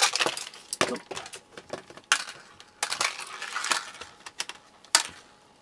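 Small screws and a screwdriver clicking and clinking as case screws are taken out of a Druck DPI-620 calibrator's plastic housing and set down on the workbench. Sharp irregular clicks are mixed with short scraping and handling noise.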